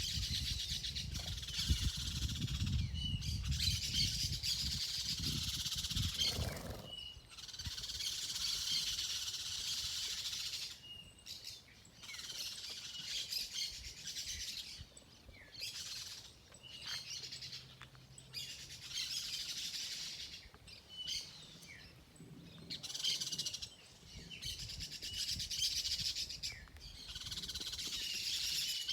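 Birds chirping and singing in busy bursts of a few seconds, with short pauses between. A low rumble runs under the first several seconds.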